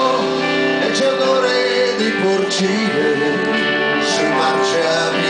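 Live band music: electric guitars and bass guitar playing a guitar-led passage with no words sung.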